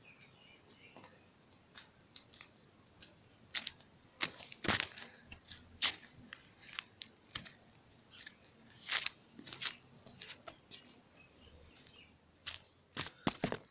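Irregular short clicks and rustles, coming unevenly, a few loud ones about 3.5 to 6 seconds in and again near the end.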